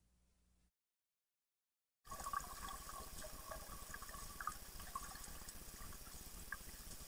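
Near silence for about two seconds, then the muffled sound of pool water heard underwater: a steady rush with bubbling and small irregular clicks.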